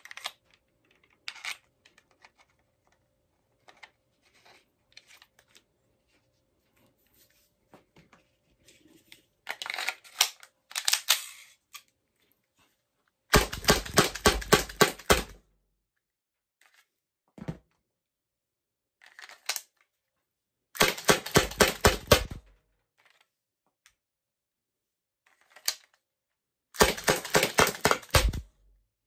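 Byrna CO2 launcher firing Byrna Kinetic rounds in three rapid strings of sharp pops, about five or six shots a second, each string lasting a second and a half to two seconds. Softer clicks and rattles of handling come between the strings.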